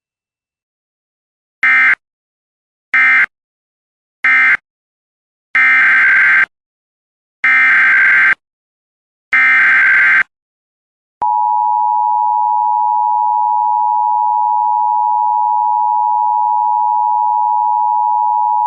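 Emergency Alert System tones. First three short, harsh screeching bursts of SAME data: the end-of-message code closing one alert. Then three longer bursts, the header of the next alert. About eleven seconds in, the steady two-tone EAS attention signal starts and holds to the end.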